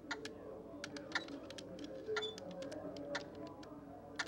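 Small irregular plastic clicks as the jointed fingers of a toy robot hand are bent and worked, over a low background murmur of voices.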